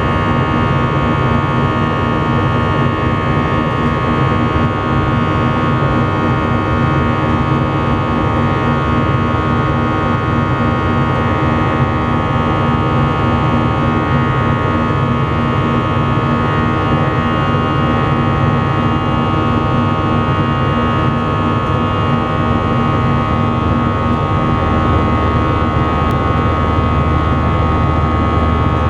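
Steady drone inside an Airbus A319 cabin: jet engine and airflow noise, with several steady whining tones over a low rumble.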